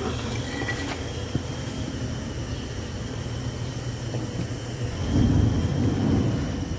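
A steady low mechanical rumble, swelling louder about five seconds in.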